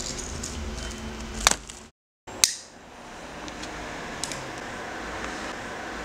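Steady background hiss with a few sharp clicks. The sound drops out for a moment about two seconds in, and right after it a cigarette lighter is struck.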